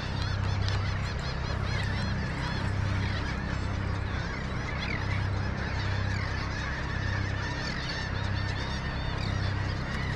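A flock of seabirds calling continuously: many short, high, overlapping calls, over a steady low rumble.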